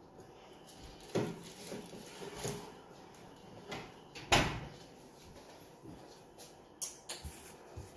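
An oven door opening and a metal baking tray being taken out, heard as a few separate knocks and clunks; the loudest clunk comes about four seconds in.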